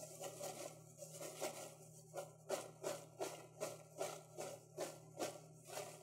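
Dry, oil-free popcorn kernels popping in a lidded silicone popcorn bucket inside a running Panasonic microwave: quick, uneven pops about three a second over the microwave's steady low hum.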